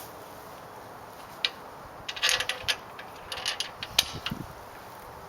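Small tiller assembly hardware being handled: a scatter of sharp clicks and short rattles, the sharpest click about four seconds in.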